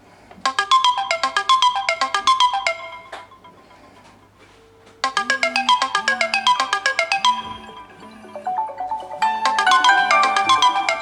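Smartphone ringtone and alarm tones playing at the same time: quick runs of bell-like, marimba-style notes that stop about three seconds in and start again at about five seconds. From there a lower tone pulses repeatedly underneath, and near the end two melodies overlap.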